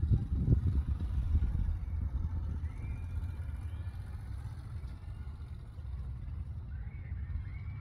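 Steady low outdoor rumble, gustier and louder in the first two seconds, with a few faint high whistling tones about three seconds in and again near the end.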